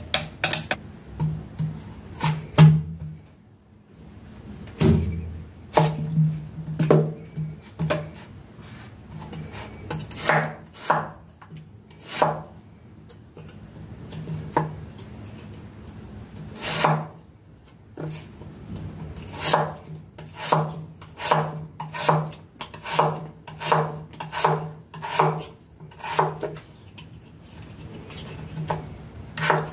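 Kitchen knife slicing a peeled raw potato on a wooden cutting board: a series of crisp knocks as the blade cuts through and meets the board. They come in scattered strokes at first, then quicker and more regular, about one and a half a second, in the second half.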